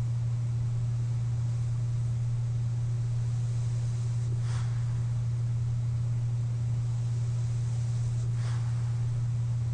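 A steady low hum, most likely the CPAP machine's blower, with a soft airy breath from the sleeper through the CPAP mask about every four seconds, twice. The breaths are short and faint, with no loud snore.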